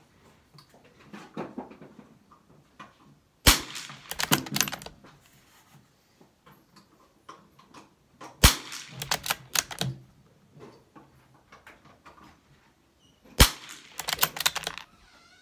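Three shots from a Brno No. 4 .22 rimfire bolt-action rifle, about five seconds apart. Each shot is followed by a quick run of metallic clicks as the bolt is worked to eject the case and chamber the next round.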